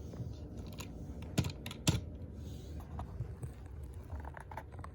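Toys being handled: a few light clicks and taps, with two sharper clicks a little over a second in and again about two seconds in.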